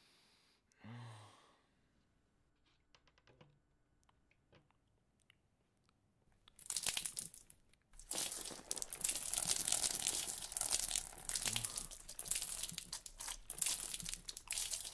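Milk gulped from a carton and overflowing the mouth, a continuous wet splashing and gurgling full of small clicks, starting a little past halfway after a brief burst of the same. Before that, only a few faint clicks.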